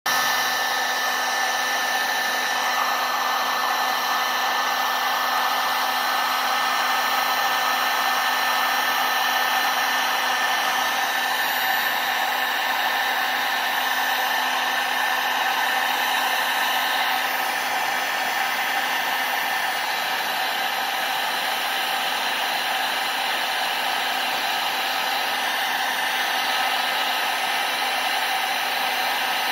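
Heat gun running steadily: a constant rush of blown air with the steady whine of its fan motor.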